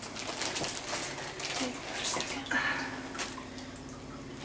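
Water sloshing and splashing in an inflatable birth pool as hands and bodies move through it, in short irregular splashes.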